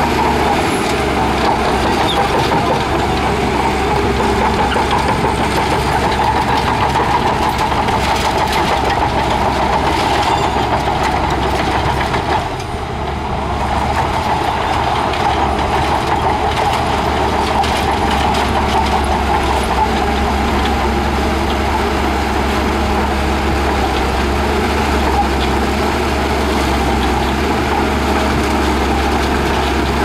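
Shantui DH17 crawler bulldozer's diesel engine running steadily under load while it pushes a pile of sand. The sound dips briefly about twelve seconds in, then carries on.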